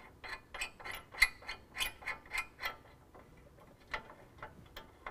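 A ratchet wrench clicking in quick, even strokes, about three to four a second, as a nut is run onto a bolt through the frame bracket. After about two and a half seconds the clicking thins out to a few faint clicks.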